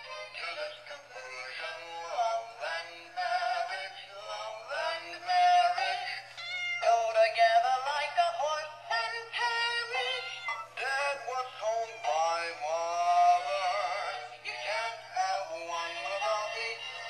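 Singing plush teddy bears playing a recorded song through their small built-in speaker: a thin vocal tune with no bass.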